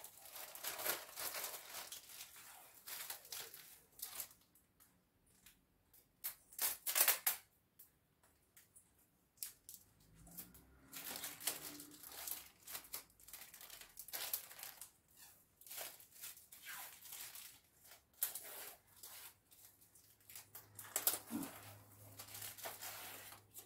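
Plastic bag crinkling as tape is pulled off its roll and wound around the bag's neck, in short, irregular rustles and rips.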